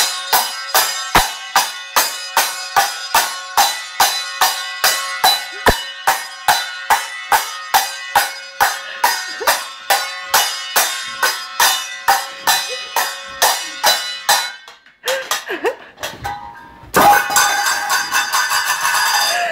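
Metal pots and pans banged together over and over, sharp ringing clangs at about two to three a second for some fifteen seconds. After a short lull comes a louder, jumbled burst near the end.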